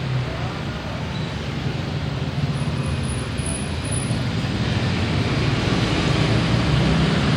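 Road traffic: a vehicle engine hums under steady road noise, growing louder over the last few seconds as it comes closer.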